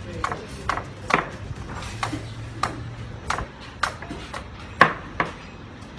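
Machete chopping a young green coconut: about nine sharp, irregularly spaced strikes as the husk is hacked away.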